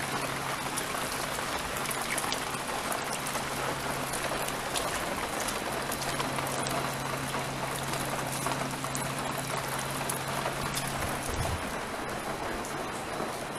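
Steady rain hissing and pattering, with a low steady hum underneath that stops about eleven seconds in.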